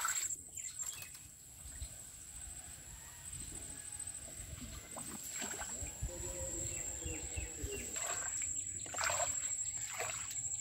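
Shallow floodwater splashing and trickling as a bamboo fish trap and a stick are worked through it, with birds chirping around and a steady high-pitched whine underneath.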